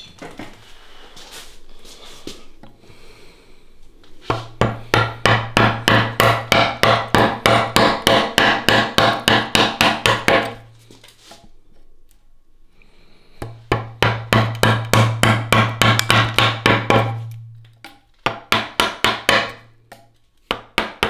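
Carving chisel driven into a hardwood post by rapid, hard mallet blows, about five a second, in three long runs with short pauses between, a low hum sounding under each run.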